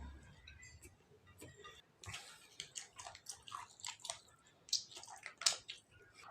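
A person chewing and smacking their lips while eating, in a series of short mouth clicks and smacks that grow busier about two seconds in, with a couple of louder smacks near the end.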